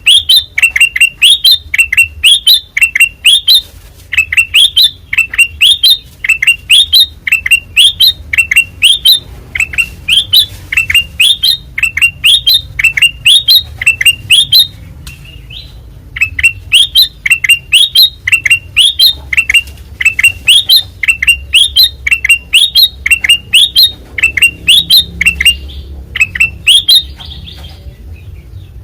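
Kutilang emas (golden bulbul) singing loudly and without let-up: a fast string of short, sharply rising whistled notes, two or three a second. The song breaks off briefly twice and stops about a second before the end.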